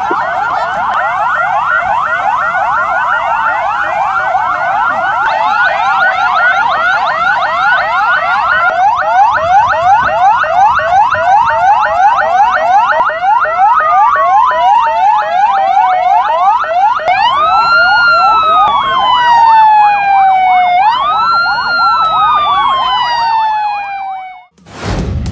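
Emergency vehicle sirens sounding together: a fast, rapidly repeating yelp, joined from about halfway by a slower wail that twice rises sharply and falls away. The sound cuts off abruptly near the end.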